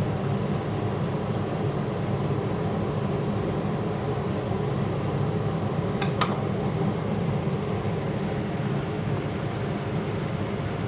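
Steady low background hum, with a single sharp click about six seconds in.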